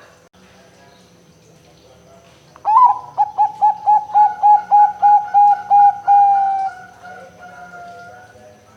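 Zebra dove (perkutut) cooing: a quick run of about a dozen short coo notes, then one longer drawn-out note that sinks slightly in pitch and fades.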